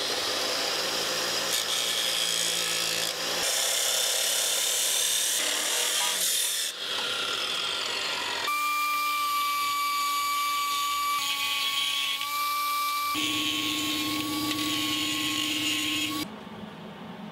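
Abrasive chop saw cutting through a stainless steel exhaust tip, giving a loud grinding hiss for about eight seconds. Then a handheld die grinder runs with a steady high whine on the end of a catalytic converter, shifting a little in pitch and stopping suddenly near the end.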